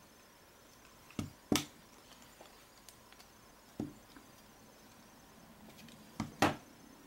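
Plastic rear housing of a Samsung Galaxy Nexus being pressed onto the phone, its clips snapping into place. There are sharp clicks: a quick pair about a second in, a single click in the middle and another quick pair near the end, with a few fainter ticks between.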